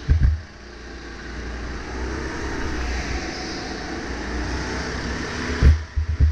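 A 270 cc go-kart engine heard onboard, picking up speed over the first couple of seconds and then running steadily at speed. Sharp low thumps come at the very start and again in a quick series near the end.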